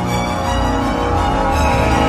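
Dramatic theme music with sustained tones and a heavy low end, building slightly in loudness.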